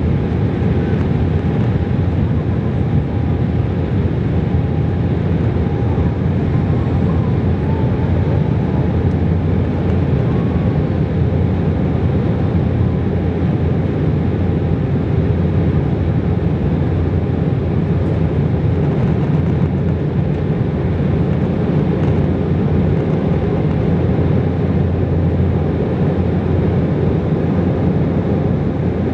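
Steady roar of an Embraer 190's GE CF34-10E turbofan engines and rushing air during climb-out, heard inside the cabin beside the wing.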